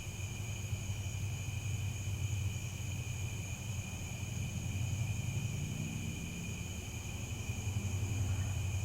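Crickets chirping in a steady, unbroken chorus, over a low continuous rumble.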